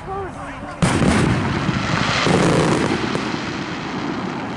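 Aerial firework shell bursting with a sudden boom about a second in, followed by a long rolling rumble that swells again a little after two seconds and slowly dies away.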